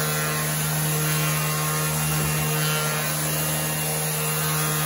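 Ryobi random orbital sander running steadily with a constant motor hum as it sands a hardwood board.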